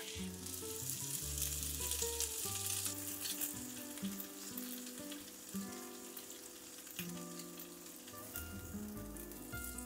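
An egg-soaked brioche slice frying in hot melted butter in a pan. It sizzles loudly as soon as it goes in, then settles to a quieter sizzle that fades toward the end.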